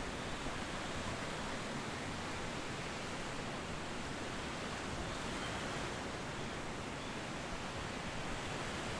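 Steady, even rushing of ocean surf, with no single wave standing out.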